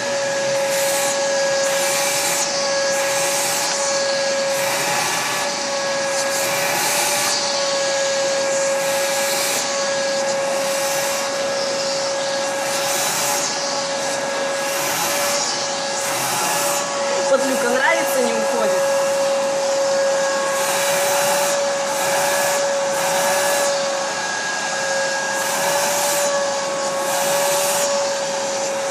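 Vacuum cleaner running with a steady motor hum as its nozzle is worked over a cat's fur. The suction hiss swells and fades about once a second with each stroke.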